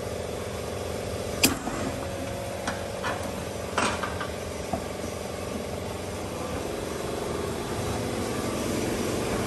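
A vehicle engine running steadily at idle, with two sharp clicks about one and a half seconds and four seconds in.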